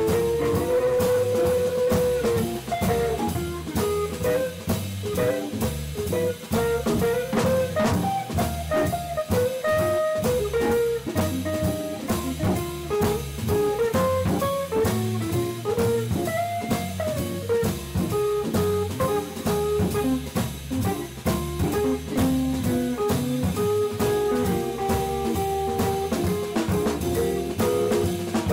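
Live jazz quartet playing a blues: archtop electric guitar, organ and drum kit, with a single-note melody line moving over the swinging band.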